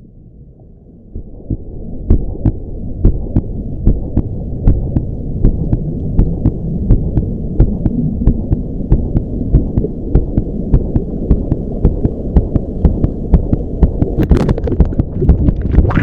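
Churning waterfall water heard from a GoPro adrift underwater: a dull, muffled rumble that swells about a second in, with regular knocks about twice a second.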